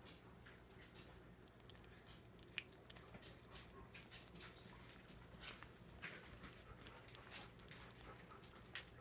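Faint, irregular wet smacking and chewing of a cat eating raw ground meat, several small clicks a second, with one sharper click a little after two seconds in.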